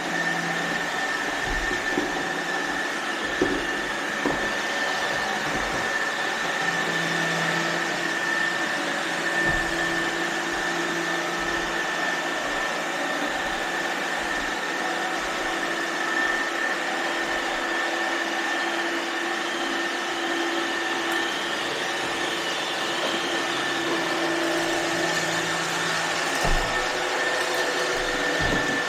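iRobot Roomba robot vacuums running: a steady motor and brush whir with a constant high whine, and a few light knocks.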